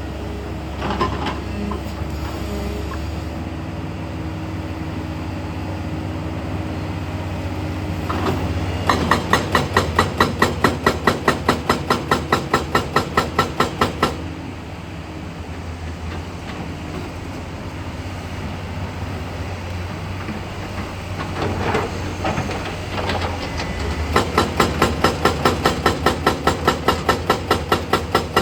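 Hydraulic rock breaker on a tracked excavator hammering in rapid, regular blows, several a second, over the steady drone of the diesel engine. The hammering comes in two runs: one of about five seconds, starting about a third of the way in, and another starting near the end.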